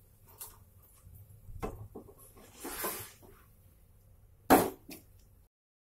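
Knocks and clatter of a nonstick tawa on a gas stove as the paratha is flipped, the loudest a single sharp knock about four and a half seconds in, over faint sizzling of ghee. The sound cuts off abruptly just before the end.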